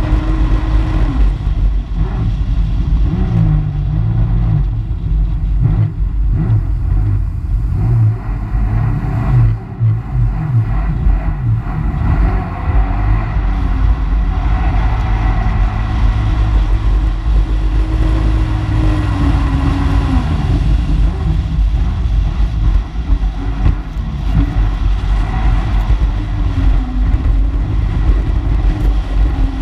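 Personal watercraft engine running at speed, its pitch wavering and dipping a few times, over the rush of water and wind buffeting the microphone.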